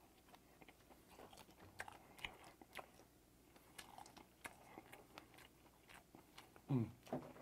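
Close-up mouth sounds of a man chewing a piece of steamed ray: many soft, short wet clicks. Near the end come two short hummed sounds, falling in pitch.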